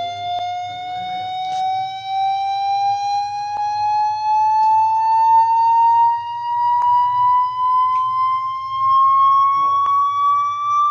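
Speaker-cleaning tone: a synthesized electronic tone sweeping slowly upward in pitch, played to shake dust and water out of a phone speaker. A faint low hum runs underneath.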